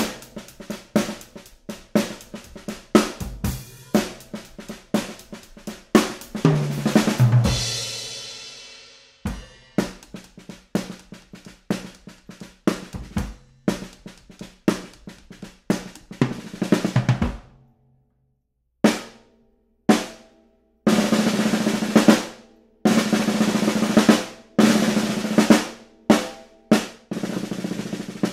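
Acoustic drum kit played with grooves, fills and rolls on snare, bass drum and cymbals. In the first third the cymbals ring out in a long wash; after that the same kit sounds with Drumtee covers fitted over the cymbals, so the hits are shorter and drier, ending in dense snare rolls.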